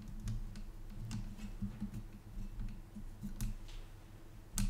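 Scattered light clicks and ticks of small screws and a graphics card's backplate being handled during reassembly, with one sharper click near the end, over a faint steady low hum.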